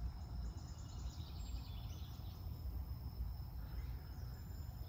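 Ambient noise: a steady low rumble with faint, high bird chirps about a second in and again near the end.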